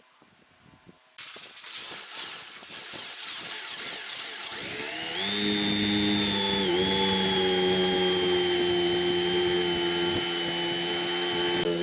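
Electric power tool starting up: noise builds from about a second in, then a rising whine as the motor comes up to speed, after which it runs steadily at a high pitch, with a brief dip in pitch near the seven-second mark.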